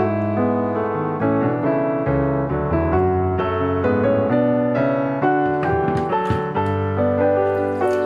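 Background piano music, a steady run of notes. Near the end, running tap water starts to hiss in faintly under the music.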